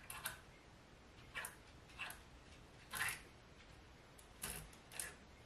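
Several short rustles and knocks of things being handled and shifted on a closet shelf, a handful of separate sounds spread over a few seconds.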